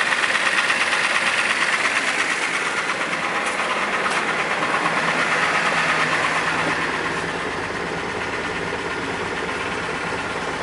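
Jeep TJ's 4.0-litre straight-six idling just after starting, with a fast, even knock or tick in time with the engine. The owner suspects a broken piston skirt or a bad piston rather than a crank bearing. The idle settles a little quieter about seven seconds in.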